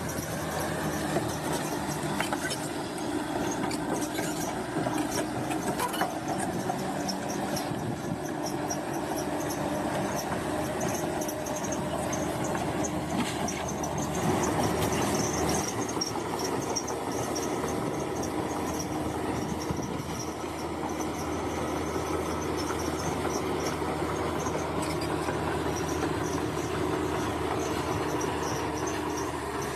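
Bulldozer working: a steady diesel engine with high metallic squealing from its steel tracks.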